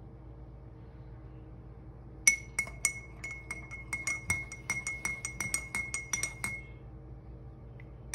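A metal spoon stirring honey into a cup of herbal kadha, clinking against the cup's sides about five times a second for some four seconds, each clink ringing at the same clear pitch. The clinks start about two seconds in.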